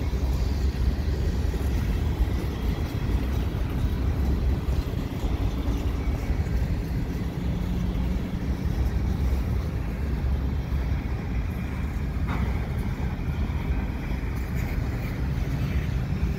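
Covered grain hopper cars of a freight train rolling past, a steady rumble of steel wheels on the rails.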